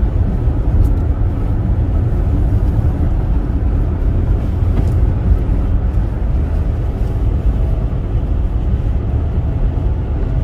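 Steady low road rumble of a car driving on a snowy expressway, heard from inside the cabin: tyre and engine noise with wind over the body.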